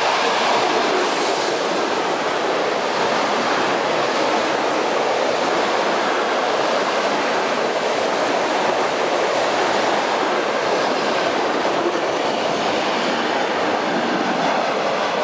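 ED4M electric multiple unit running past close alongside a platform at speed: a steady, loud rush of wheel and rail noise as its cars go by.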